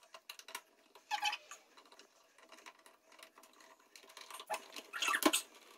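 Light clicks and scraping of a screwdriver and fingers working on the terminals and breakers of an open switchboard, with a louder sharp click about five seconds in.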